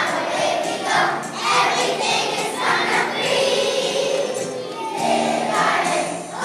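A large group of young children singing a song together.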